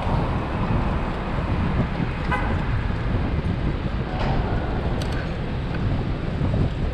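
Steady low rumble of city street traffic, with a taxi passing close by. A brief high toot sounds about two seconds in.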